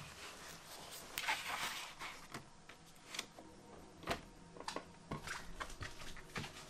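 A sheet of Bristol comic art board rustling as it is handled over a flatbed scanner, followed by scattered light clicks and taps.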